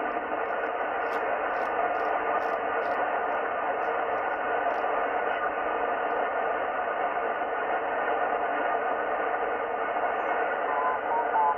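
Yaesu FT-710 HF transceiver's receiver playing a steady hiss of 10-metre band noise in sideband mode, with no station on frequency. Near the end a garbled single-sideband voice comes in, sliding in pitch as the dial is turned.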